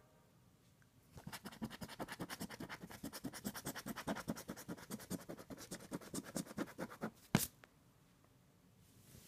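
Scratch-off lottery ticket being scratched in quick back-and-forth strokes, about six a second, for some six seconds, ending with one sharp tap.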